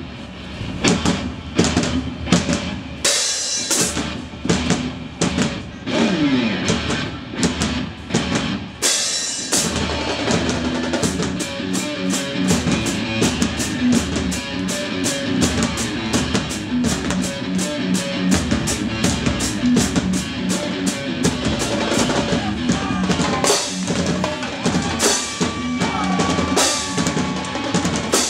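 Marching drumline playing live: marching snare drums and tuned bass drums. Sharp accented hits with brief pauses through the first ten seconds or so, then a steady, fast, continuous groove.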